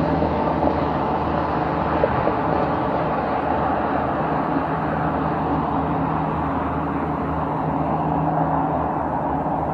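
Boeing 737 MAX's CFM LEAP-1B turbofan engines running steadily as the airliner touches down and rolls out on the runway after landing, a low hum under a broad rushing noise whose higher part thins toward the end as the jet moves away.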